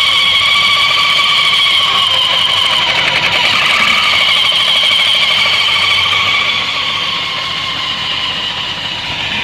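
Suzuki Burgman 650's variator (CVT) giving a loud, steady high whistle of several tones over the running drive. The whistle weakens about six and a half seconds in. Its cause is unexplained to the owner.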